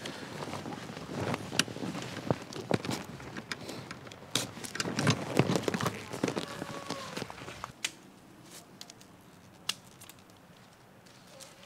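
Ortlieb roll-top pannier being handled and fitted onto a bike's rear rack: its stiff waterproof fabric rustling and crinkling, with many sharp clicks and knocks, busiest about five seconds in. After about eight seconds it falls away to a few faint clicks.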